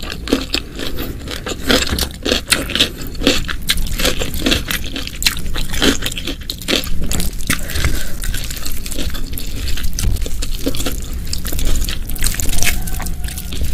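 Close-miked eating sounds: chewing and mouth sounds, a dense, unbroken run of small clicks, smacks and crunches.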